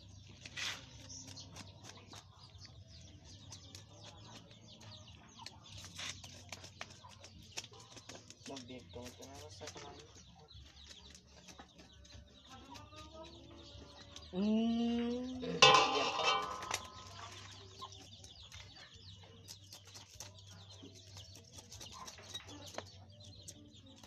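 A knife scrapes scales off a tilapia in many short scratchy strokes. Partway through, a chicken clucks, and a little later it gives a louder call lasting about two seconds.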